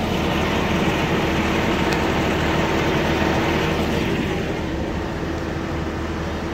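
John Deere compact utility tractor's diesel engine running steadily as it tows a loaded wooden hay wagon, with the wagon rattling and rolling along the trail; the rattle eases a little after about four seconds.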